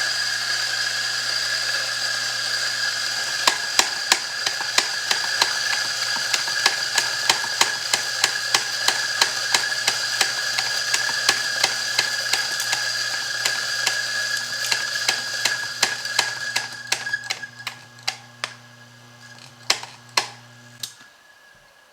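Mazzer burr grinder's motor running steadily while grinding a single 20 g dose of coffee beans, with a rapid regular clicking, about three a second, starting a few seconds in. The grinding thins out near the end as the beans run out, and the motor switches off about a second before the end.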